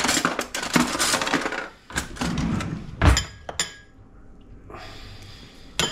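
Kitchen utensils rattling in a drawer, then a heavy thud about three seconds in. Right after it, a metal spoon clinks sharply against a ceramic bowl a few times and then scrapes quietly as rice is spooned out.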